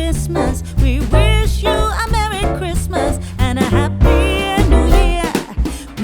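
Upbeat song with a sung vocal over a steady bass beat.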